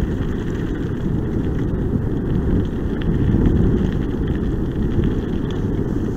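Steady wind rumble on the microphone from riding along, over the rolling of the kickbike's tyres on a dirt and gravel trail.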